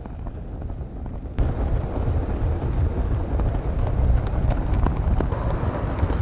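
Model train running along the track, heard from a camera riding on it: a steady low rumble with light clicks, getting louder about a second and a half in.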